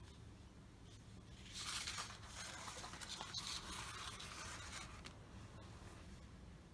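Dry scratching and rubbing of a tool or brush worked over a surface, starting about a second and a half in and lasting about three and a half seconds, with a few small clicks.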